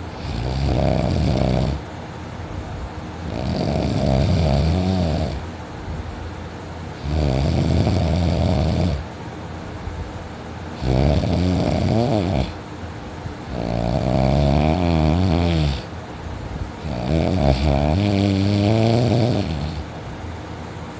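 A person snoring heavily in deep sleep, lying on their back: six long, loud snores of about two seconds each, coming roughly every three and a half seconds.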